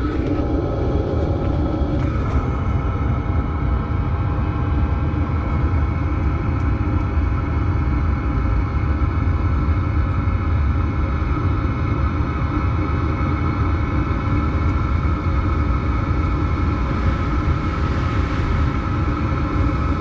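Chinese diesel parking heater running just after start-up, heard at its exhaust: a steady low rumble with a faint steady whine above it, while the excess diesel burns off as smoke.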